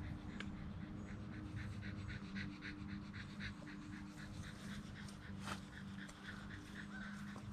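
Small dog panting in quick, even breaths, about four to five a second, faint, over a steady low hum.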